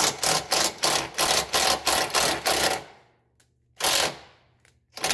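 A cordless DeWalt impact tool hammering at a rust-seized 12 mm undertray bolt in a fast stuttering run, about four bursts a second, then two separate short bursts near the end as the bolt is worked back and forth.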